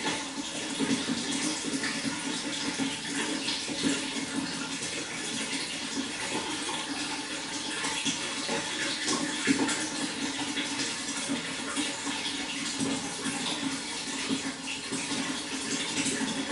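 Water flowing in a steady rush, with small irregular splashes.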